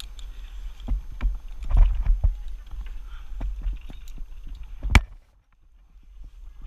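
Wind rumbling on a GoPro's microphone during a zip line ride, with scattered clicks and knocks from the trolley and harness gear. A sharp clack comes about five seconds in, and the sound drops off abruptly after it.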